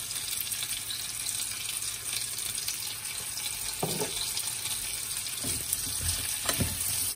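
Diced sweet potatoes sautéing in butter in a pan: a steady sizzle, with a few soft knocks of the spatula against the pan in the second half as they are stirred.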